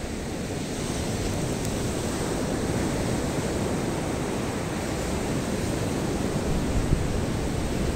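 Rough surf breaking and washing up a sandy beach: a steady, continuous noise of waves.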